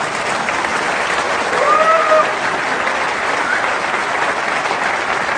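Theatre audience applauding steadily after a punchline, a dense even patter of many hands. One short high call rises above the clapping about two seconds in.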